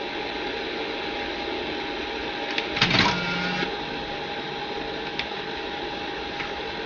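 Car stereo head unit's mechanism motor whirring briefly with clicks about three seconds in, over a steady hiss and a constant tone.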